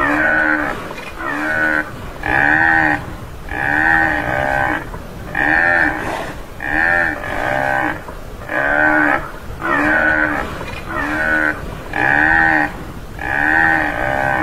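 Tamaraw (Mindoro dwarf buffalo) giving a steady series of short calls, about one every second and a bit. Each call rises and then falls in pitch.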